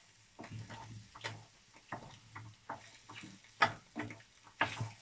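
Wooden spatula stirring scrambled eggs and vegetables in a frying pan, scraping and knocking against the pan in irregular clicks and scrapes. The sharpest knocks come about three and a half seconds in and again near the end.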